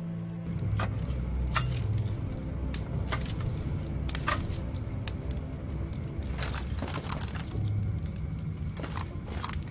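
Large open fire burning, a low rumble broken by scattered crackles and pops.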